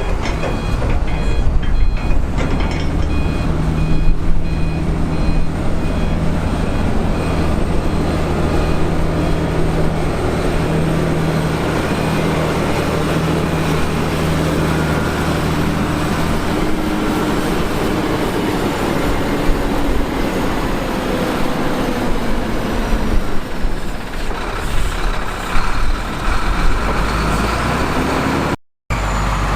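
Diesel engines of heavy construction machines running loud and steady, with a reversing alarm beeping at an even rate for roughly the first ten seconds. The sound drops out completely for a moment near the end.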